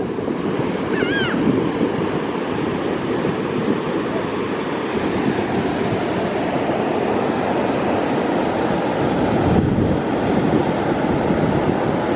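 Ocean surf breaking and washing up the beach in a steady rushing noise, with wind buffeting the microphone.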